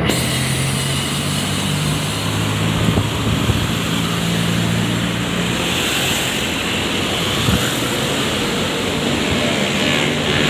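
Intercity bus running steadily on the road: a low, even engine hum under a constant rush of tyre and road noise.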